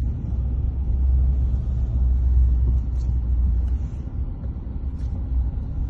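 Steady low rumble of a car driving on a mountain road, heard from inside the cabin: engine and road noise.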